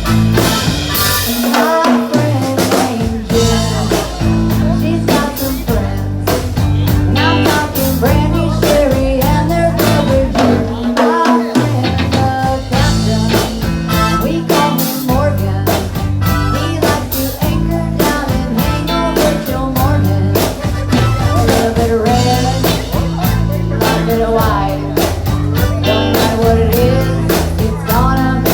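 Live band playing a blues-rock number: drum kit keeping a steady beat, electric guitar, bass, and some singing.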